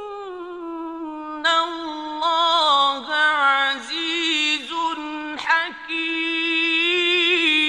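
A male reciter chanting the Quran in the slow, melodic mujawwad style: a long sung phrase of held, ornamented notes with a few brief breaks.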